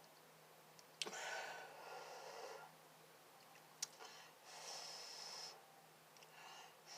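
Two breathy blows of air over hot instant noodles to cool them, each lasting about a second and a half, the second with a faint whistle. A sharp click comes just before the first blow.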